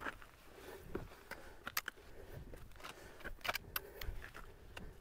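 Hiker's footsteps and trekking pole on a steep rocky, earthy path: faint scuffing with a few scattered sharp clicks of the pole tip and shoes on rock.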